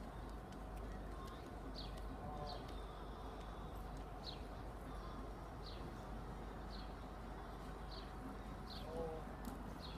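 A small bird calling over and over: short high chirps that fall in pitch, about one a second, over a steady low hum.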